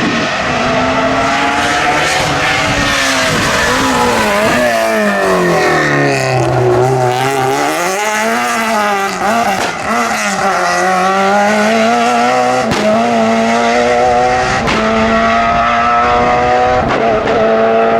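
Rally car engine at high revs on a stage, its pitch dropping steeply as the driver lifts about five seconds in, swinging up and down again, then holding a long steady pull that slowly climbs. A few sharp cracks come in the second half.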